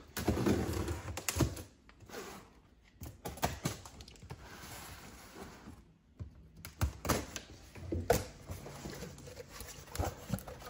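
Folding knife cutting the packing tape on a cardboard box, then the cardboard flaps being pulled open: irregular scrapes, taps and knocks of blade and hands on cardboard.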